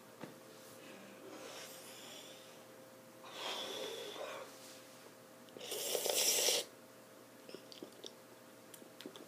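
A person blowing out hard through pursed lips, three breathy exhales, each louder than the last, the third the loudest and hissiest about six seconds in. It is the puffing of someone trying to cool a mouth burning from cayenne hot sauce.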